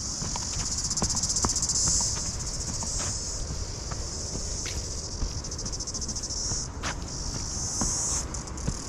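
Insects buzzing in a steady, high, finely pulsing chorus that drops out briefly twice near the end, with the soft footfalls of a runner on a dirt trail beneath it.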